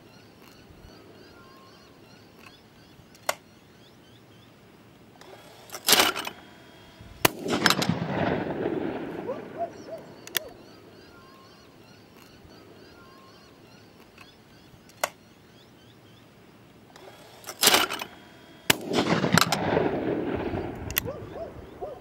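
Twice, a short loud clack of the electronic trap's throwing arm launching a clay is followed about a second and a half later by a single shotgun shot that rolls away in a long echo. Faint bird chirps sound in between.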